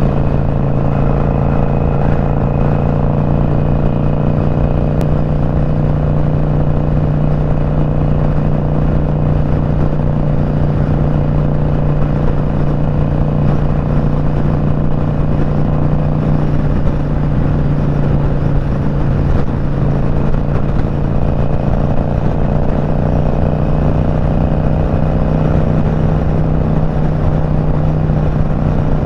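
Motorcycle engine running steadily at highway cruising speed, a constant drone with no change in pitch, over rushing wind noise.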